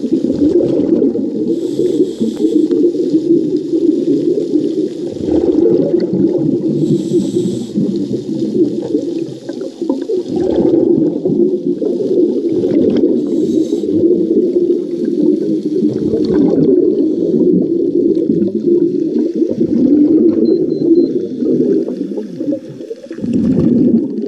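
Muffled underwater rumble and crackle of scuba divers' exhaled bubbles streaming up through the water, heard from underwater. A few short bursts of bubble hiss come through on top of it.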